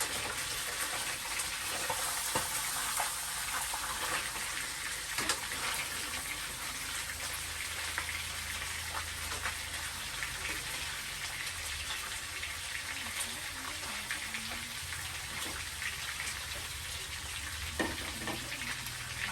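Fish frying in hot oil: a steady sizzle with scattered pops and crackles, over a low hum.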